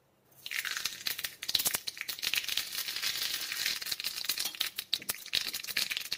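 Tempering spices sizzling and crackling in hot oil in a small tempering pan, a dense run of rapid pops that starts about half a second in and cuts off suddenly at the end: the oil is hot enough for tempering (tadka).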